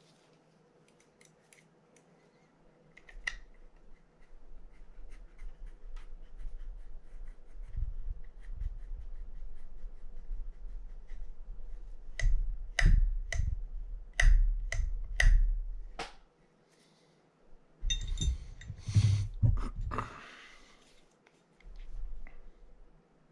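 Hands working on a Penn Spinfisher 750SS spinning reel during a teardown, with light ticks, handling rumble and a quick run of about seven sharp metallic clicks. Near the end comes a short scraping, rustling stretch.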